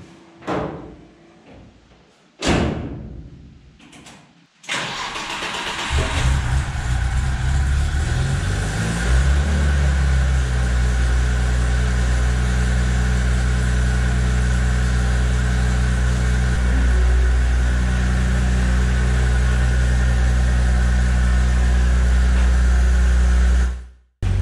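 Two sharp knocks, then about five seconds in the engine of a home-built articulated off-road machine cranks, starts and settles into a steady idle. The sound cuts off abruptly near the end.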